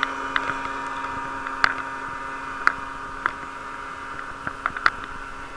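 Muffled ride noise heard through a waterproof camera case on a moving bicycle: a steady hum with several fixed tones, slowly getting quieter, broken by about eight sharp knocks.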